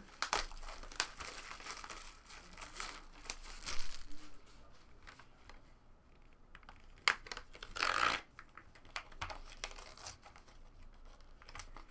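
Super Break hockey card box being handled and opened: crinkling of its wrapping and cardboard scraping and tearing, in short irregular bursts, the loudest rips about 4 s and 8 s in.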